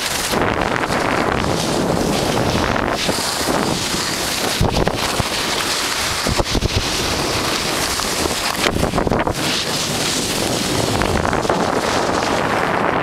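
Wind buffeting the camera microphone while moving downhill, over a steady rush of snow sliding under a snowboard, with a few brief knocks in the middle.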